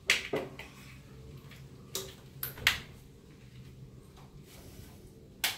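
Several sharp plastic clicks and snaps from a car engine's wiring harness shield and its clips being pried open by hand, spread out with pauses between them, over a faint steady low hum.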